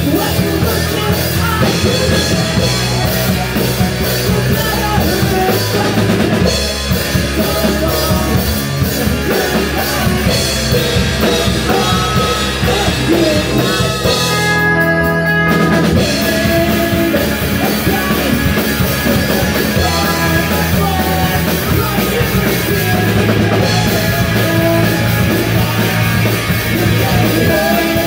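Live punk/emo rock band playing loud: a drum kit, distorted electric guitar and bass guitar under a lead singer. About halfway through the drums drop out briefly while a held note rings, then the full band comes back in.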